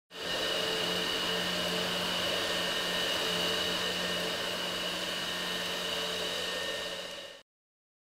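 Dyson 360 Vis Nav robot vacuum cleaning: a steady whir of its suction motor with a constant high whine, cutting off sharply about seven seconds in.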